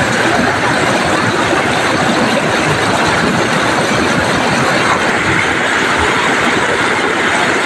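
Loud, steady rush of river water pouring over a low log weir, with no break or change.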